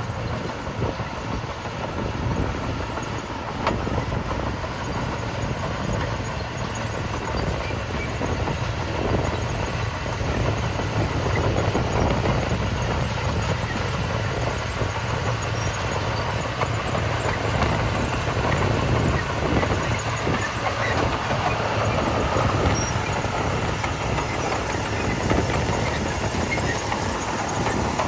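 Heavy diesel earthmoving machinery running steadily, with a low engine drone.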